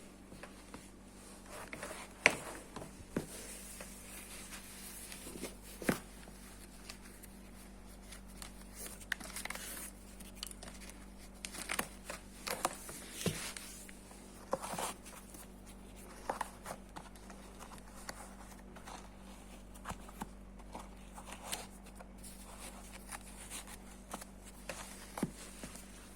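Paper stuffing crinkling and rustling as it is pulled out of a new sneaker, with scattered soft handling clicks and knocks on and off.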